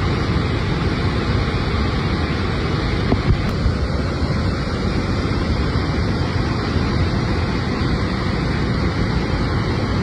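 Ciliwung River water rushing over the Katulampa weir after continuous rain, a loud, steady rushing with no letup.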